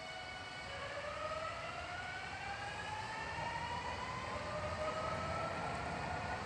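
Electric express train's traction motors whining as it pulls away and accelerates: several tones rise together steadily in pitch, over a growing rumble of running noise.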